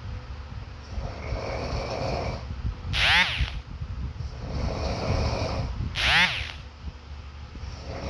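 Snoring in a steady cycle about every three seconds: a breathy, rasping in-breath followed by a loud, high out-breath that slides down in pitch. The cycle happens twice, and a third in-breath begins near the end.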